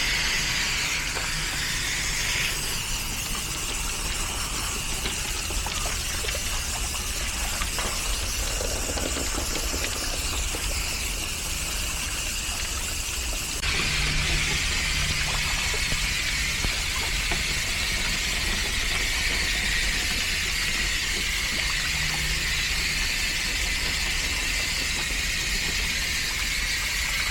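Water from a garden hose spray nozzle hissing as it is sprayed through a dirty air-conditioner condenser coil clogged with dryer lint. The spray grows louder about halfway through.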